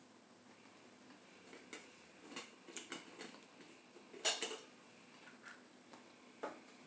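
Scattered light clicks and taps of crab legs and tableware being handled, the loudest about four seconds in.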